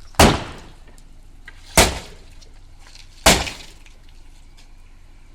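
Sledgehammer striking a scrap Renault Laguna three times, the heavy blows about a second and a half apart, with glass breaking.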